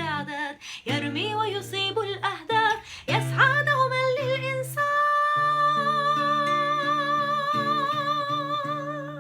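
Closing bars of an Arabic cartoon theme song: a woman sings the final words over a band. About five seconds in she holds one long last note with vibrato over sustained chords, and the music fades out at the end.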